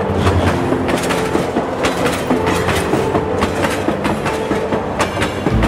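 Passenger train running along the line, its wheels clattering over the rail joints in quick, irregular clacks over a steady rumble, heard from a carriage doorway.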